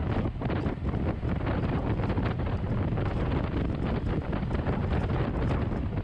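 Inside the cab of a 1929 Ford Model A pickup on the move: its four-cylinder engine and road noise run steadily under heavy wind noise on the microphone, with frequent small rattles and clicks.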